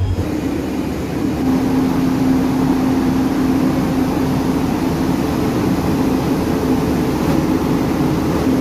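A train's locomotive running steadily, a continuous engine noise with a droning tone that sets in about a second in and holds.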